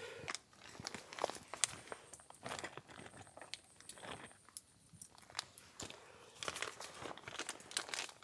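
Close-up eating sounds: irregular crunchy biting and chewing, with small clicks and crinkles.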